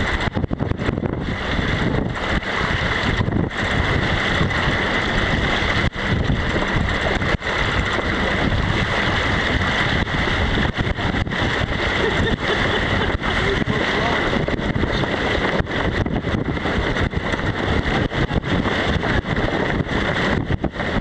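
Strong gusty wind buffeting the microphone over water rushing and breaking along the hull of a small sailboat heeling hard under sail.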